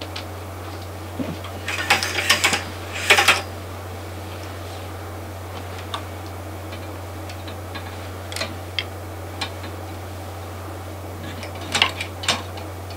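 Clothes hangers clicking and clattering on a wardrobe rail as garments are pushed along and pulled out, in short bursts: a long rattle a couple of seconds in, a few single clicks, and another cluster near the end. A steady low hum runs underneath.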